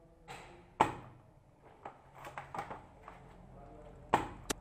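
Airsoft sniper rifle firing two sharp shots about three seconds apart, with a few faint clicks between them.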